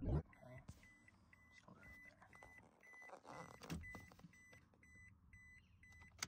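A 2007 Toyota Tacoma's dashboard warning chime beeping quickly and evenly, over faint clicks from the ignition key and dash buttons, with a sharp click at the start as the key is turned.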